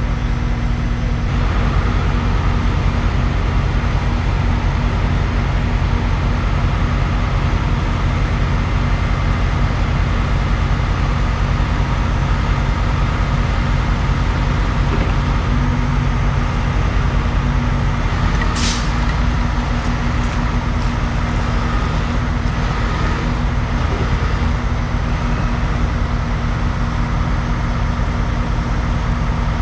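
Dump truck's diesel engine running steadily, heard from inside the cab, with one brief sharp high noise about two-thirds of the way through.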